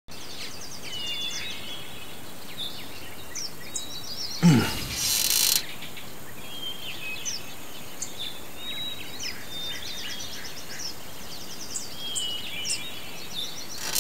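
Outdoor birdsong ambience: small birds chirping and trilling over a steady hiss. About four and a half seconds in, a loud, sudden sound falls in pitch, followed by a burst of hiss that cuts off about a second later.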